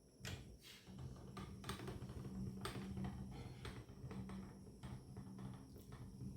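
Tripod stand being handled: a run of irregular light clicks and knocks, with a low steady hum underneath.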